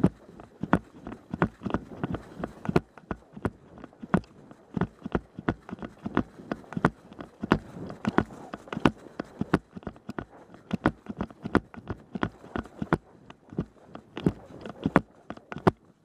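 Footsteps at a run or fast walk on outdoor ground, a steady train of sharp strikes at about three a second.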